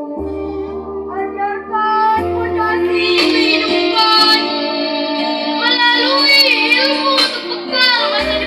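Girls' choir singing a melody over instrumental backing, with sustained chords and a deep bass note that comes and goes.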